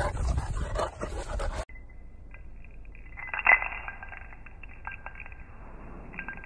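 Wind buffeting the microphone outdoors, cut off abruptly a little under two seconds in. Then quiet room tone with light taps and clinks of a dangling string toy being batted by a cat, one sharper clink about three and a half seconds in.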